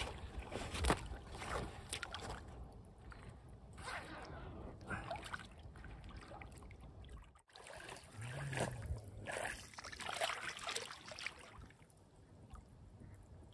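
Lake water sloshing and splashing around a floating carp retainer sling as it is handled in the shallows, with short rasping zip sounds as the sling is opened to release the fish.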